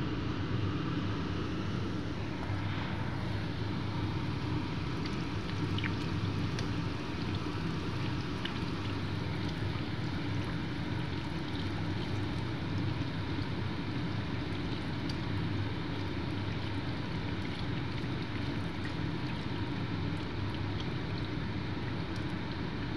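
Homemade ring doughnuts frying in hot oil, a steady sizzle with scattered small pops and crackles, over a low steady hum.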